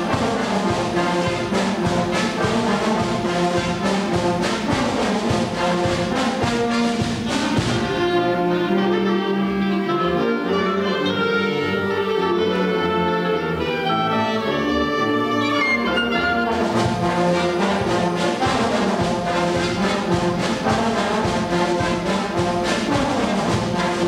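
Concert band of woodwinds, brass and percussion playing a light, upbeat piece with a steady drum beat. About a third of the way in the percussion drops out for a softer passage, and about two-thirds through the full band with drums comes back in.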